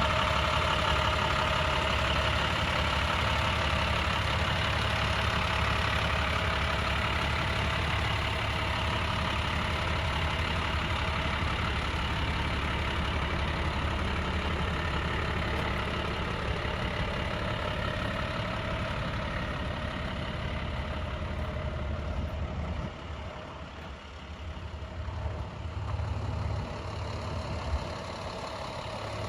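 Truck's MaxxForce DT turbo diesel engine idling steadily; the sound drops in level for a moment about three-quarters of the way through, then comes back.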